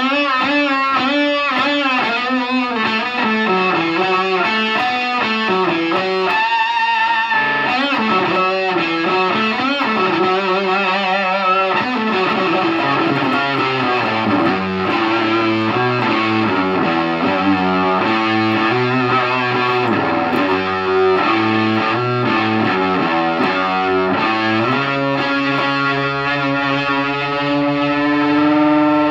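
Electric guitar played through a Visual Sound Angry Fuzz pedal into a Peavey Bandit 112 amp, with a thick fuzz tone. It opens with bent notes and wide vibrato, moves into a stepping single-note riff, and ends on a long held note.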